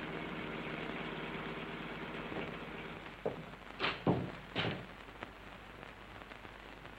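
Hissy 1940s film soundtrack: a steady low held tone fades out about three seconds in. A few sharp knocks follow around four seconds in, then only hiss.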